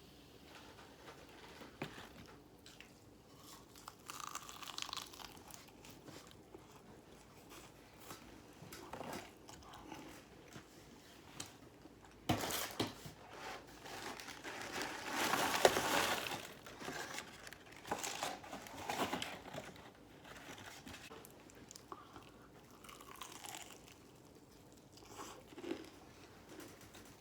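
Crunching of Popeyes fried chicken being bitten and chewed, with crinkling of the paper wrapping, in short quiet bursts; the loudest, densest stretch comes about halfway through.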